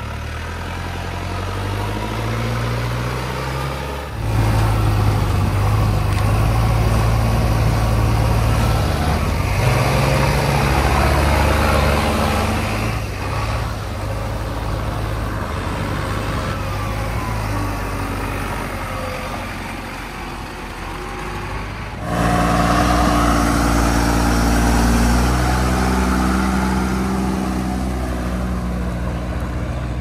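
Diesel engines of heavy machines running, in three shots cut together: a Mahindra Arjun tractor's engine at first, then, louder after a cut about four seconds in, a JCB 3DX backhoe loader's engine, and for roughly the last third, after another cut, a Tata dump truck's engine pulling away.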